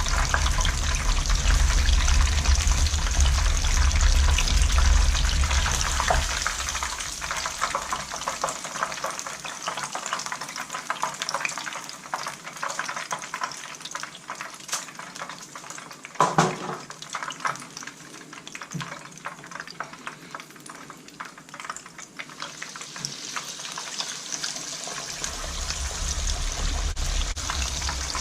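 Chicken pieces coated in cornflour deep-frying in hot oil in a wok, with a steady crackling sizzle. A low rumble sits underneath, dies away after about six seconds and comes back near the end. There is one brief, louder clunk about halfway through.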